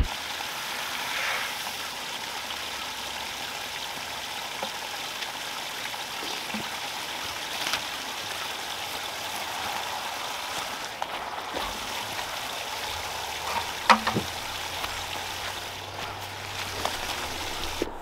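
Steady hiss of running water, with a few light knocks and one sharper knock about fourteen seconds in.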